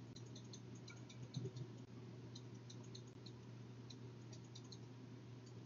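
Faint, irregular ticks of a computer mouse being clicked and scrolled, over a low steady hum, with a soft low bump about one and a half seconds in.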